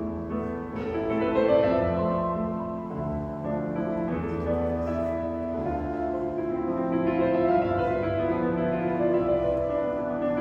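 Piano trio playing live, piano to the fore with sustained violin and cello lines underneath, in a reverberant cathedral.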